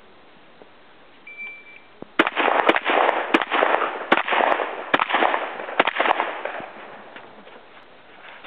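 A short high electronic beep from a shot timer, then a rapid string of pump-action shotgun shots, each less than a second apart and ringing with echo. The firing stops a little over halfway through.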